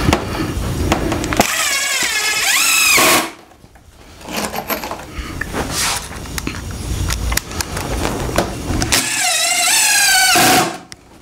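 Cordless drill/driver driving wood screws into the corner of a wooden beehive box, twice: each run lasts about two seconds, its motor pitch wavering and rising before it stops suddenly. Small knocks of handling come in between.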